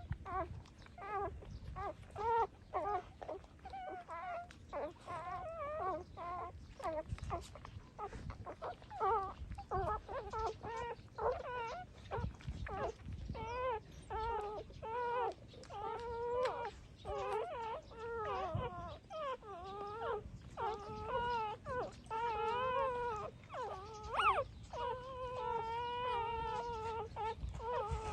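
Six-day-old puppies crying: a steady run of short, high whining squeals, some wavering in pitch, with longer drawn-out cries in the second half.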